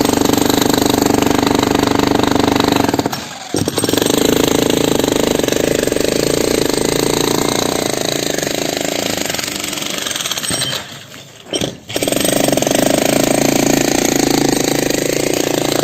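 Jackhammer rapidly hammering into an old concrete slab to break it up, stopping briefly about three seconds in and again for about a second near the eleven-second mark before starting again.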